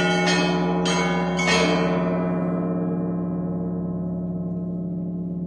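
Russian Orthodox church bells struck by a bell ringer: about three last strikes on the smaller bells in the first second and a half. Then the set rings out, the high bells fading away while the deep hum of a large bell lingers.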